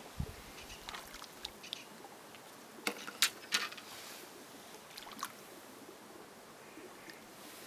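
Small splashes and water sloshing in the shallows as a hooked fish is drawn in and landed by hand: a scatter of short, sharp splashes, the loudest a cluster about three to four seconds in, over a faint steady hiss.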